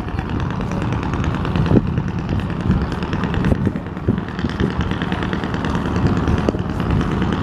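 Boat diesel engine running steadily under way, mixed with rushing water and wind buffeting the microphone.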